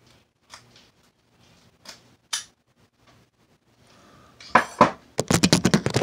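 Snake rake scraping against the pins of a Master Lock No. 5 padlock under a tension wrench, a few light metallic clicks. About four and a half seconds in come two loud knocks, then a fast rattling clatter of metallic strikes.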